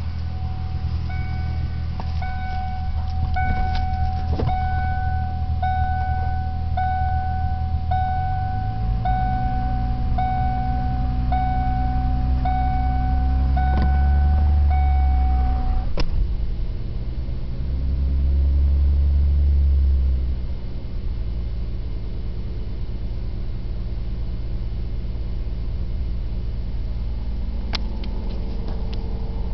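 1997 Ford Mustang's 3.8-litre V6 running, raised gently off idle twice and settling back down, in the 1000–1500 rpm range where it chatters or knocks: the owner has been told it is lifters but suspects a rod knock. A beep repeats about once a second through the first half and stops with a click.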